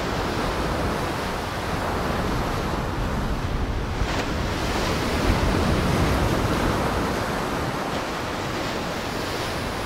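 Heavy surf: big waves breaking and washing without pause, with wind.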